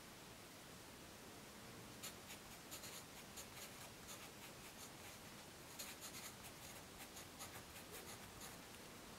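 Graphite pencil scratching on paper in quick, short strokes while hand-lettering in capitals, faint. The strokes start about two seconds in, pause briefly, and come again in a second spell from about six seconds in.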